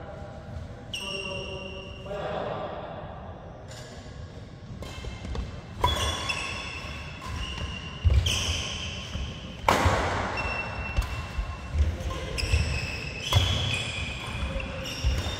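Badminton rally: sharp cracks of rackets striking the shuttlecock, coming every second or two from about five seconds in, with court shoes squeaking on the synthetic mat, in a large hall.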